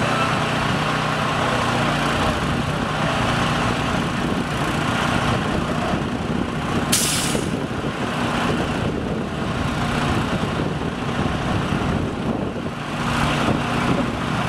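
An engine running steadily as the self-erecting jig's tower tilts down, with one short sharp hiss about halfway through.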